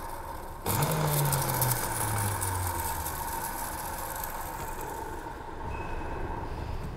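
Electric mixer grinder running with its steel jar, its blade crushing chopped Bermuda grass (arugampul) dry, without water. About a second in it gets suddenly louder and its hum drops in pitch over the next couple of seconds.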